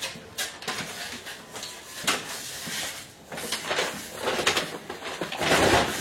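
Rummaging among boxes and stored household things: a run of irregular rustles, scrapes and knocks, the loudest near the end.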